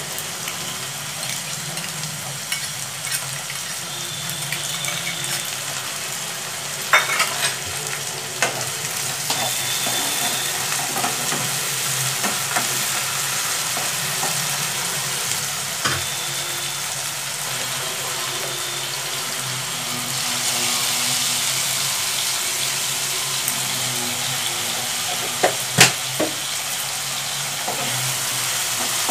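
Diced cauliflower, onion and carrot sizzling in oil in a non-stick frying pan while being stir-fried with a spatula. The sizzle runs steadily, with a few sharp knocks of the spatula against the pan about seven seconds in and again near the end.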